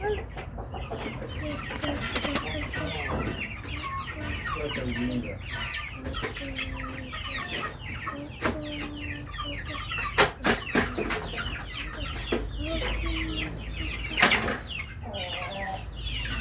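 A flock of chickens clucking and calling continuously in many short, falling notes, with a few sharp knocks about ten seconds in and again near the end.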